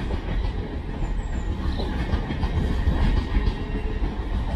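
LNER Azuma intercity train moving out through the station's pointwork: a steady low rumble of wheels on rail, with irregular clicks and clatter over the joints and crossings.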